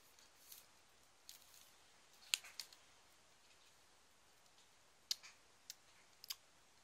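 A few faint, sharp clicks and taps over near silence: handling noise as a glass wine bottle is turned in the hands, the two loudest clicks coming about two seconds in and about five seconds in.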